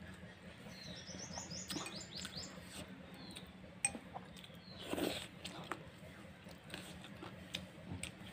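A small bird calling: a quick run of about eight short, high, falling chirps about a second in, with fainter single calls before and after. Beneath it are the soft clicks of someone eating watery rice by hand, and a brief louder mouth noise about five seconds in.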